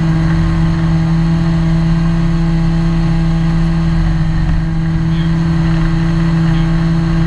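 Ginetta G20 GTR rally car's engine running steadily at an unchanging pitch over a low rumble, heard from inside the cockpit.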